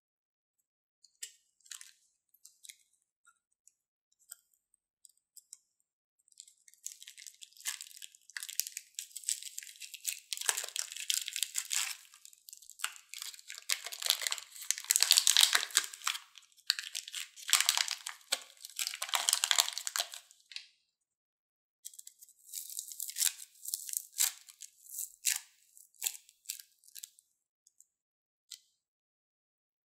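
A plastic piping bag packed with foam beads crinkles and crackles as it is handled and squeezed. The foam beads crunch as they are pushed out and pressed onto slime, in two long bouts of dense crackling with a short break between them. A few faint clicks come before the crackling begins.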